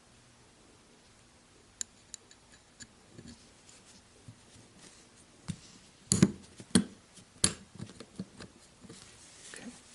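Small metal knife parts and tools being handled on a work surface: a few faint clicks, then a run of louder taps and knocks past the middle, followed by lighter clicks.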